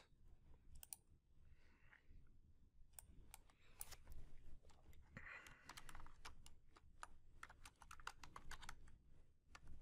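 Faint typing on a computer keyboard: a run of quick, light keystrokes in short clusters with pauses between them.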